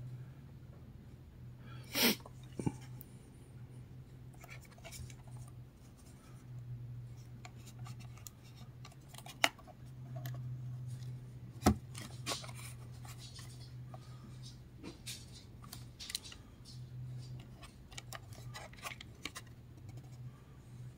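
Hands handling the plastic case of a Jensen portable AM/FM Walkman-style radio: scattered small clicks and knocks as it is turned over, the sharpest about two seconds in and near the middle, over a faint steady low hum.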